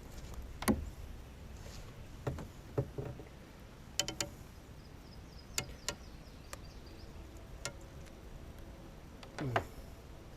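Scattered light knocks and clicks, a dozen or so spread irregularly, with a short sound sliding down in pitch near the end.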